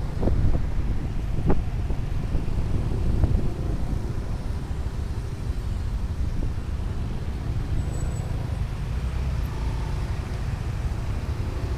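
Motorcycle riding in road traffic: a steady low rumble of engine, tyres and wind, with a few short knocks in the first couple of seconds.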